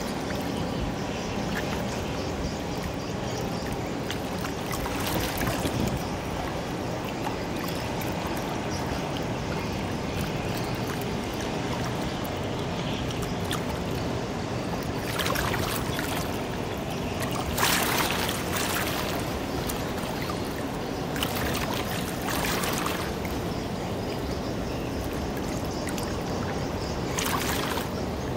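Water rushing and splashing along a large ship's hull as its bulbous bow pushes a bow wave through the river, with several brief louder surges of splashing.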